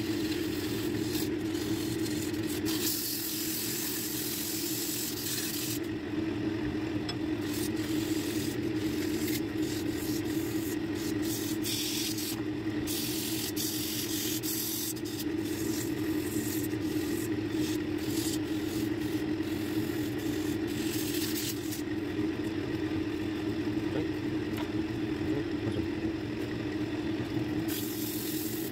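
Wood lathe running with a steady hum while sandpaper is pressed against the spinning wooden spindle, giving an abrasive hiss that comes and goes, easing off twice as the paper is lifted.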